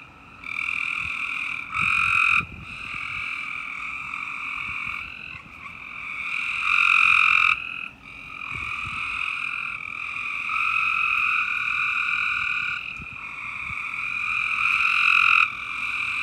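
A chorus of frogs calling in breeding season: long, overlapping trilling calls lasting several seconds each, with brief breaks between them.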